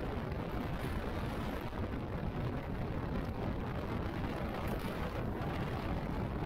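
Steady wind and road noise from a motorcycle underway, with the wind rushing over the microphone and the engine blended into it.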